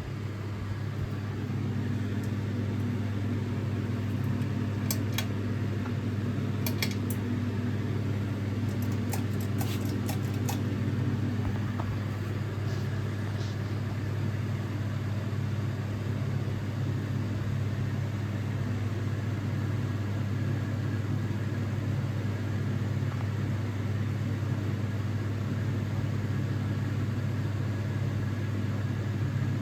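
Sears Roebuck ceiling fan running, its motor giving a steady low hum. A few brief clicks come about five, seven and ten seconds in.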